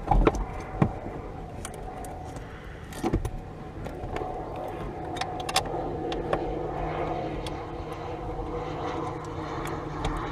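Scattered metal clicks and knocks of tools and parts as a brake pedal assembly is fitted and bolted in under a car's dashboard, over a steady low hum.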